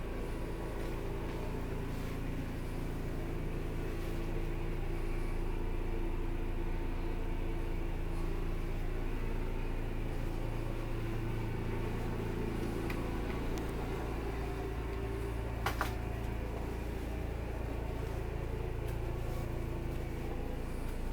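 A steady low rumble with a constant motor-like hum, unchanged throughout, and one short sharp click about 16 seconds in.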